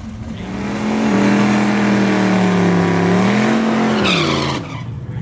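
Drag car's engine at high revs, held at a steady pitch for about three seconds, then rising briefly and falling away as the throttle closes, with a short hiss just before it cuts off.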